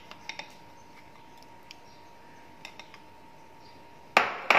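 A few faint light clicks of a spoon against a bowl as ginger-garlic paste is tipped into a glass mixing bowl, then about four seconds in two loud, sharp clinks of kitchen bowls being handled. A faint steady hum sits underneath.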